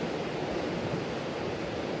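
Mountain stream running, a steady even rush of water.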